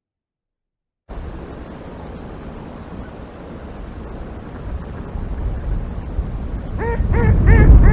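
Wind buffeting an outdoor camera microphone, a low rumble that starts suddenly about a second in and grows steadily louder. Near the end a bird gives a quick run of four or five short, arching calls.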